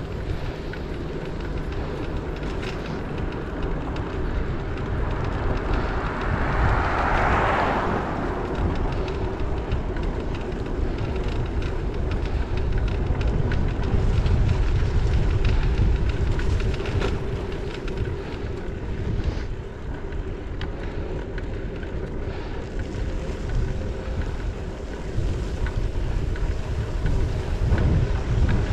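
Wind rumbling over the microphone of a head-mounted action camera on a moving bicycle. A passing vehicle swells and fades about seven seconds in.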